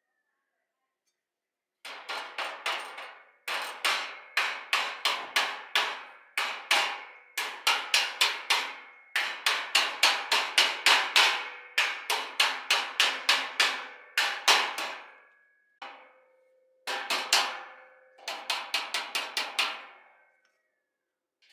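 A hammer striking steel in fast runs of blows, about five a second, with short pauses between runs; the metal rings after each blow.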